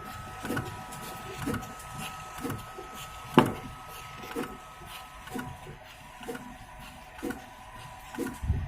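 Graphtec cutting plotter running at its highest speed: steady motor whine with short sweeping moves about once a second as the cutter head and rollers shift, and one sharp click about three and a half seconds in.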